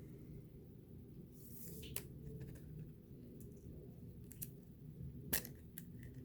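Chronicles basketball trading cards being handled and flipped through: soft sliding with sharp card clicks, a louder snap about two seconds in and another near the end.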